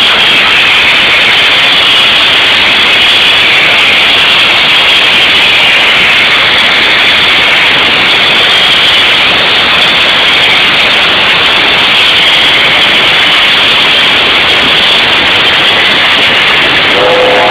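Steam locomotive venting steam at close range: a loud, steady hiss.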